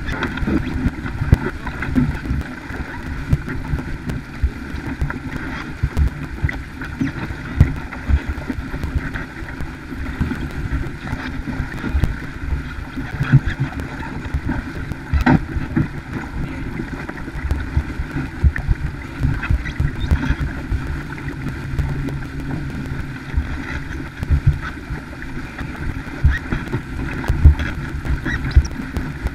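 Wind buffeting the microphone in irregular low thumps over the steady rush of water along the hull of a sailboat under way.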